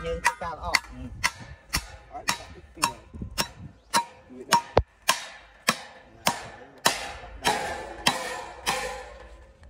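Steady, evenly spaced sharp strikes, a little under two a second, each with a short ringing tail, the later ones ringing a little longer: a tool striking repeatedly, as in hammering or chopping.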